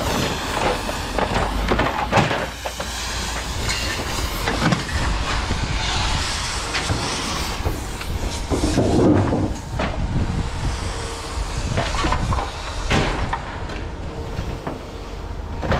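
Scattered clanks and knocks of scrap metal being handled, over a steady low rumble and hiss.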